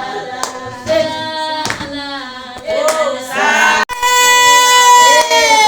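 Group of voices singing unaccompanied, with sharp handclaps about once a second. Near the end a long held note slides downward.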